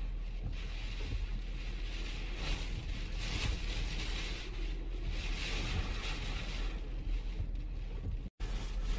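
Hurricane-force wind rushing and gusting, with a low rumble of wind buffeting the microphone; the gusts swell about two and a half to three and a half seconds in and again around five to six seconds.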